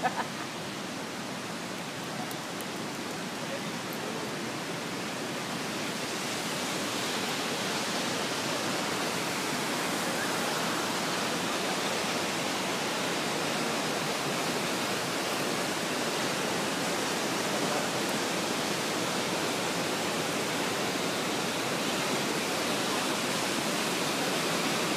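Lynn Creek's water rushing through the canyon below the suspension bridge, a steady rush that grows gradually louder from about six seconds in.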